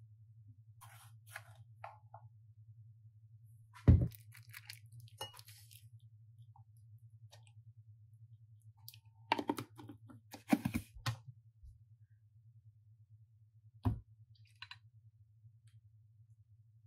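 Knocks and clatters of a cleaver, a wooden spoon, a glass bowl and a tub of red pepper paste on a countertop as minced garlic and chili paste go into the bowl. The loudest sharp knock comes about four seconds in, a cluster of clinks and scrapes follows around nine to eleven seconds, and one more knock near fourteen seconds, over a low steady hum.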